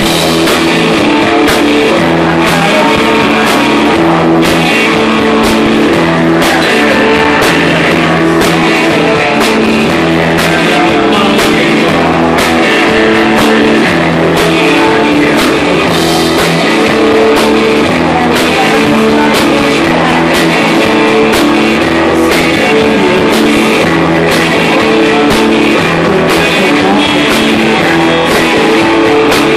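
Live rock band playing loud: electric guitars and a drum kit with a male lead vocal sung into the microphone.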